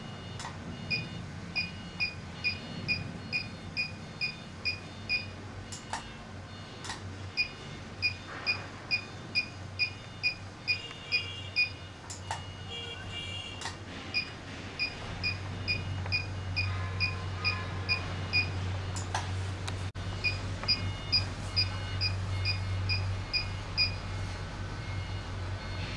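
HIFU (high-intensity focused ultrasound) machine beeping with each ultrasound shot as the 360-degree handpiece fires on the skin: short, evenly spaced electronic beeps about two a second, in runs broken by a few brief pauses. A low steady hum grows louder about halfway through.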